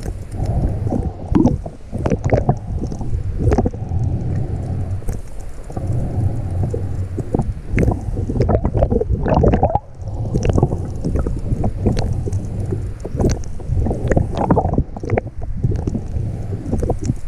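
Muffled underwater rumble and water movement picked up by a GoPro on a full face snorkel mask while snorkelling, with many small clicks and knocks scattered through it. The noise dips briefly about six and ten seconds in.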